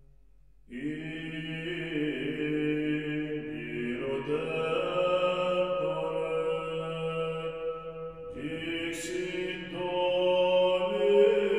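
Background music of slow vocal chanting in long held notes, coming in abruptly about a second in, with a new phrase starting about eight seconds in.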